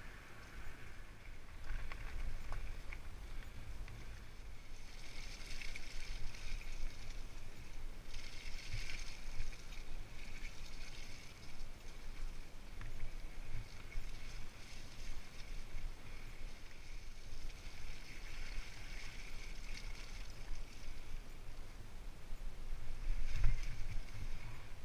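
Riding noise from a Surly Mukluk fat bike on a dirt and grass track: wind buffeting the camera microphone, with the fat tyres rolling and a hiss that comes and goes. A louder jolt comes near the end.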